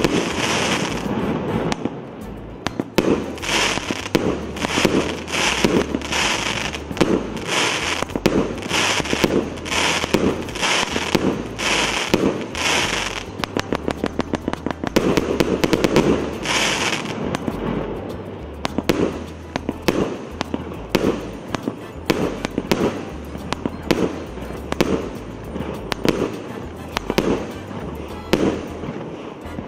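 A 1.25-inch, 204-shot firework cake (C211 "200 A") firing a continuous barrage: a fast run of launch thumps and aerial bursts, evenly paced at first and then coming closer together.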